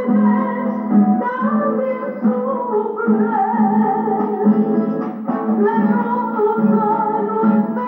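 A woman singing while accompanying herself on a classical guitar, played back through a television's speaker.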